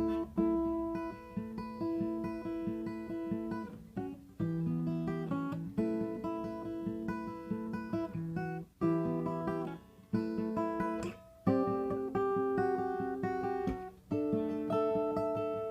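Acoustic guitar strummed through a chord progression. The chords change every two to three seconds, with a brief break at each change.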